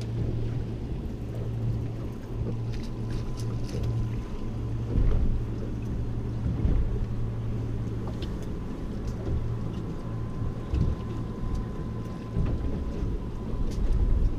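Wind and sea water around a small fishing boat, with a steady low hum and a few light clicks and knocks from fishing tackle as a fish is reeled in and lifted aboard.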